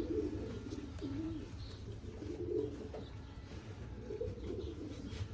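Racing pigeons cooing: low, wavering calls, one after another.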